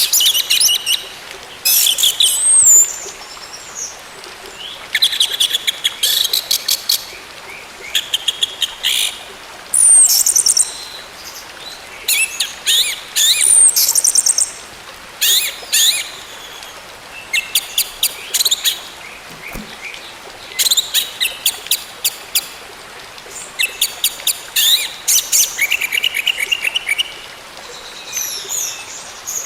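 Orange-headed thrush singing in repeated bursts a second or two long, separated by short pauses. The bursts mix rapid trilled runs of notes with whistled slides, over a steady background hiss.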